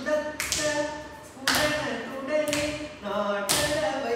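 Bharatanatyam adavu practice: a voice chants rhythm syllables on steady, sung pitches, with a sharp beat marking the rhythm about once a second.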